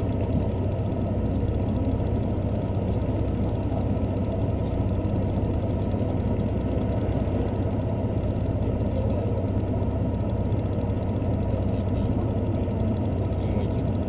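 Steady running noise of a diesel limited express train heard from inside the passenger car: a low engine hum under a rolling rumble, even throughout.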